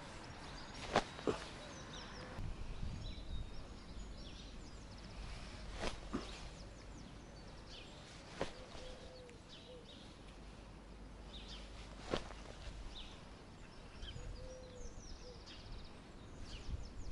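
Quiet outdoor ambience at a pond: small birds chirping now and then over a low steady rumble, with a few sharp clicks spread through it.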